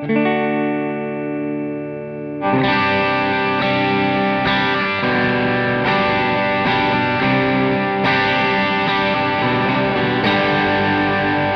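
Fender American Professional Stratocaster electric guitar played through an amp: a ringing chord that slowly fades, then about two and a half seconds in a switch to distorted chords struck in a steady rhythm.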